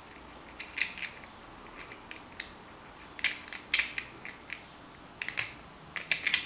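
Stainless steel mesh spice ball (tea infuser) being twisted shut by hand: short metallic clicks and scrapes in small clusters, about one cluster a second.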